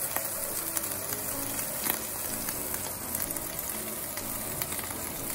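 A strip of beef heart sizzling in hot tallow in a frying pan as its edge is seared, a steady sizzle with scattered crackles and pops.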